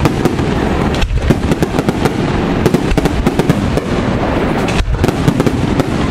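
Aerial fireworks going off in a dense, continuous barrage of bangs and crackle, with brief lulls about a second in and near five seconds.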